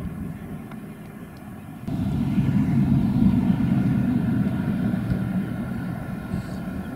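Steady low engine drone that swells up about two seconds in and holds, then eases off toward the end.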